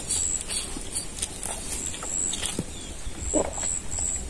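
A man eating chow mein noodles up close: slurping strands into his mouth and chewing, with wet mouth clicks and smacks, and a short louder slurp about three and a half seconds in.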